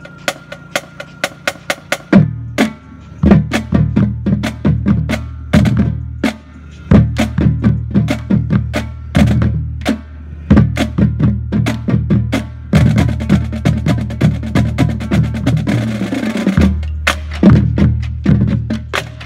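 High school marching drumline playing a percussion cadence on snare drums, tenor drums, bass drums and cymbals. It opens with a steady run of sharp clicks, then the full line comes in about two seconds in, with fast snare patterns over low bass drum strokes.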